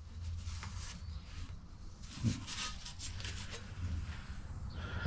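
Faint handling noise as a steel motorcycle exhaust pipe is lifted and moved: light rubbing and scraping with one soft knock about two seconds in, over a steady low hum.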